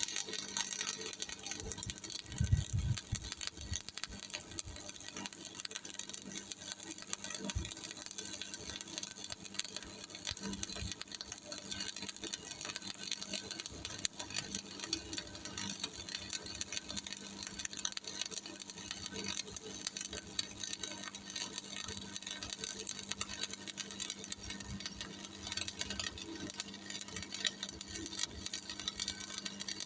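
Stick welding with a 3.2 mm E6013 rod on a Miller Thunderbolt 225: the arc crackles and sizzles steadily as a second bead is run over the first pass of a 2F fillet weld. A faint steady low hum runs underneath.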